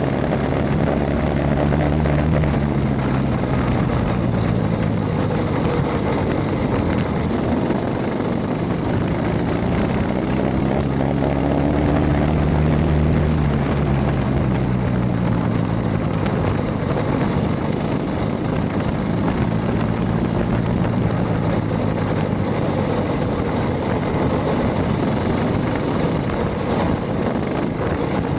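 Mini bike's Predator 212 single-cylinder four-stroke engine running under changing throttle, its pitch rising and falling.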